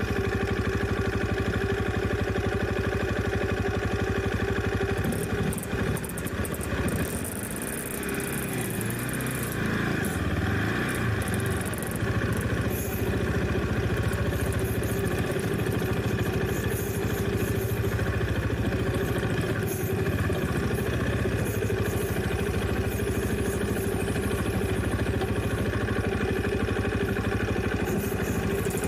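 Dirt bike engine running steadily while riding, easing off about five seconds in and picking back up a few seconds later.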